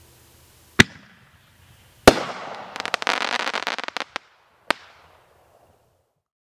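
Crackling Artillery reloadable artillery shells bursting. A sharp bang comes about a second in, and a second bang follows at about two seconds, trailed by a dense crackle lasting over a second. A third bang comes near five seconds.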